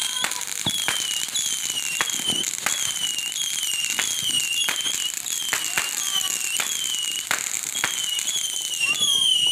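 Consumer ground fireworks going off: sharp pops about once a second over a steady high hiss. A high, falling, whistle-like chirp repeats a little under twice a second.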